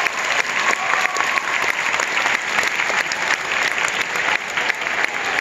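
Large audience applauding: many hands clapping at once in a dense, steady patter.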